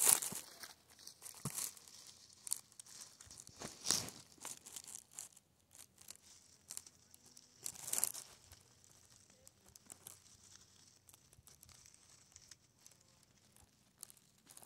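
Faint rustling and crackling in short bursts: one at the start, one about four seconds in and one about eight seconds in, with light scattered crackle between them.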